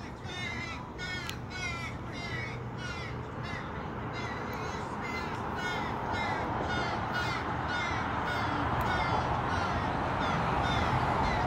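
Crows cawing over and over, short harsh calls coming about two to three a second, over a steady background noise that grows louder toward the end.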